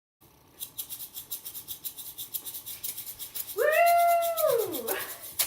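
Shaker played in a fast, even samba rhythm. About three and a half seconds in, a cat gives one long meow that rises, holds and then falls away.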